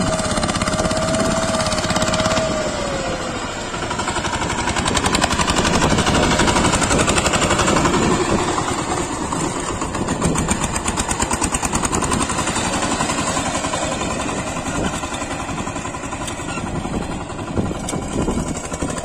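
VST Shakti 130 DI power tiller's single-cylinder diesel engine running under load with a rapid, steady knocking beat as it drives the rotary tiller through the soil. A thin whine in the first few seconds dips slightly in pitch about three seconds in.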